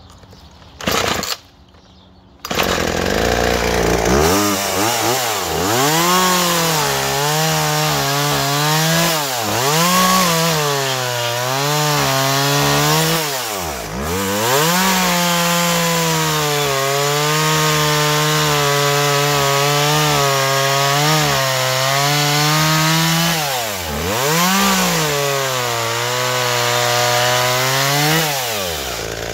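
Homelite Chainsaw Blues 33cc two-stroke chainsaw, freshly rebuilt, starting up about two seconds in, then revving up and down. It settles at a steady, lower pitch for several seconds while cutting through a log, before the revs drop near the end.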